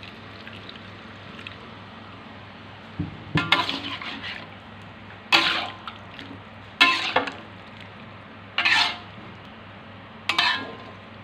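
Metal spatula stirring chicken offal in watery broth in a large metal pan: after a quiet start, five scrapes and clinks against the pan with sloshing liquid, roughly every one and a half seconds. A steady low hum runs underneath.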